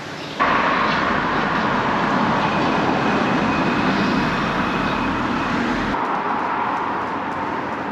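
Steady rushing street-traffic noise that cuts in abruptly about half a second in and eases slightly near the end.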